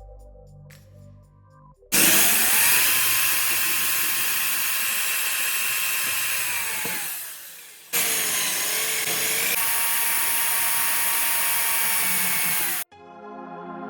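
Small power tool motor running in two goes. It spins up and runs steadily for about five seconds before winding down, then starts again about a second later and runs until it cuts off abruptly near the end.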